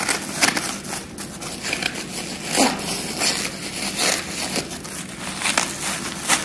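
Bubble wrap and clear plastic film crinkling and crackling in uneven rustles as hands turn and unwrap a wrapped parcel.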